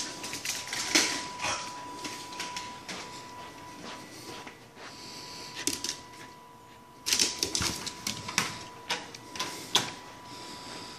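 Dog's claws clicking irregularly on a hardwood floor as it moves about, in two busy spells, over a faint steady high tone.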